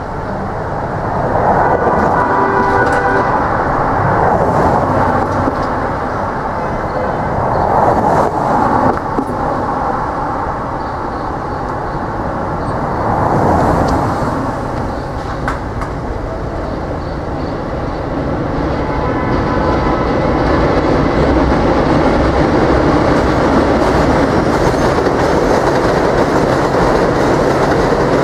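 Elevated subway train running over the steel viaduct directly overhead: a loud rumble and clatter that swells about a second and a half in and again through the second half. Cars pass on the street below.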